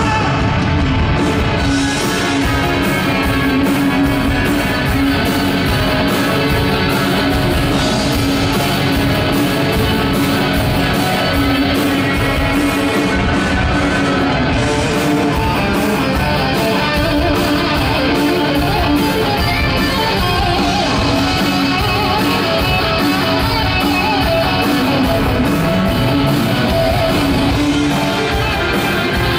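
Live rock band playing loud, with electric guitar to the fore over bass and drums.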